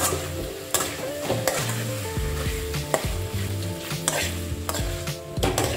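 Metal ladle scraping and stirring sauce-coated chicken pieces in an aluminium kadai, with a sharp scrape roughly every second. The thickening lemon-honey-soy sauce sizzles steadily on high heat underneath.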